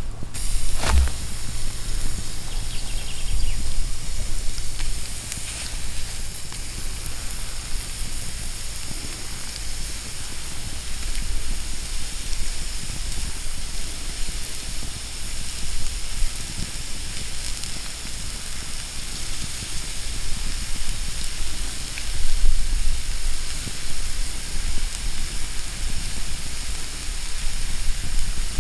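Raw chicken strips sizzling on a fire-heated rock as they are laid on it, a steady hiss, with a sharp tap about a second in.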